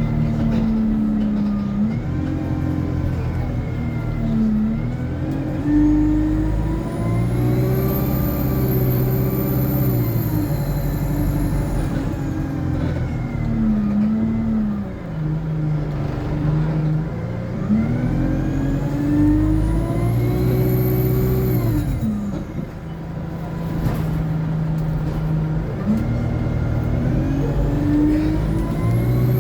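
Alexander Dennis Enviro 200 single-deck bus's diesel engine pulling away three times, its pitch climbing and stepping down through the Allison automatic gearbox's shifts. A high turbocharger whine rises and falls with each acceleration.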